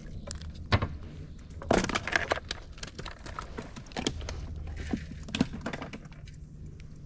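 Handling noises in a small fishing boat: scattered clicks and knocks as a caught sunfish is taken off the hook and set down, with a louder rattling clatter about two seconds in.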